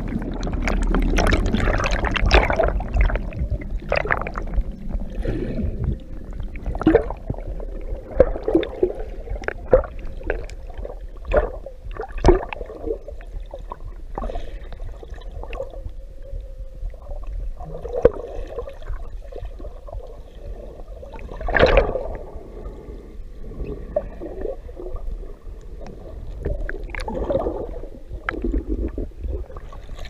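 Underwater sound picked up by a camera just plunged into the sea: a rush of bubbles over the first few seconds, then muffled water noise with scattered sharp clicks and knocks, the loudest about 22 seconds in.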